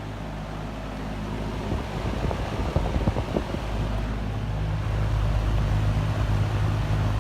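McGraw-Edison-built 20-inch Penncrest metal box fan running on high: a steady motor hum under a rush of moving air. It grows louder from about two seconds in, with a few short uneven bumps.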